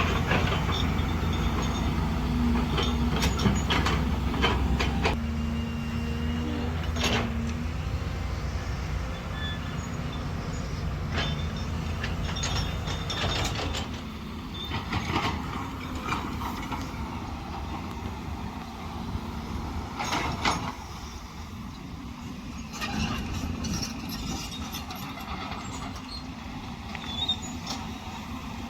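Volvo excavator's diesel engine running, with repeated metal clanks and knocks from the machine working. The engine note is strongest at the start and drops lower and quieter about eight seconds in.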